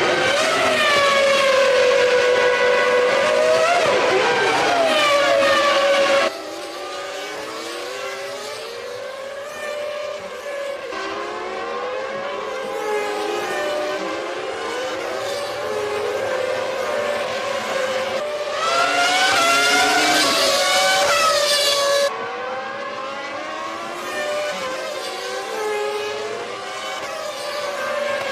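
1997 Formula One race car engines at high revs, the pitch stepping up and down through gear changes as the cars accelerate and brake. A loud stretch of one close engine gives way abruptly, about six seconds in, to quieter engines climbing through the gears. A second loud close engine comes in abruptly about two-thirds of the way through.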